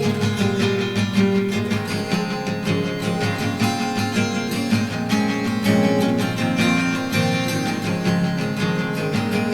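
Music: steady strummed guitar chords in a lo-fi bedroom-pop song.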